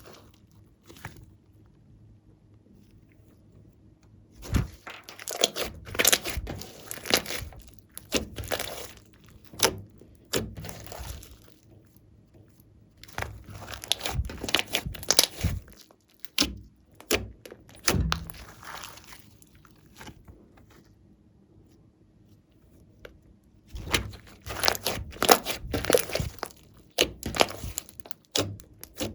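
Hands squishing, poking and stretching glossy slime mixed with clay and glitter: spells of dense sticky clicking and crackling, three in all, with quiet pauses between.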